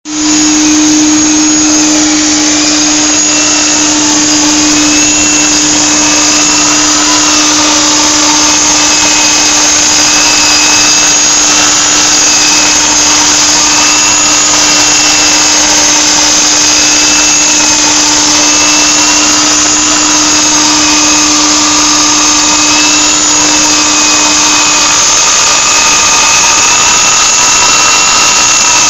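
Handheld wall sander with a diamond cup disc grinding a concrete wall, run together with its dust extractor: a loud, continuous grinding noise with high motor whines that waver slightly in pitch. A steady low hum underneath fades out near the end.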